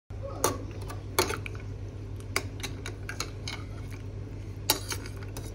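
Scattered light clinks and knocks of dishes and utensils being handled, four sharper ones spread through, over a steady low hum.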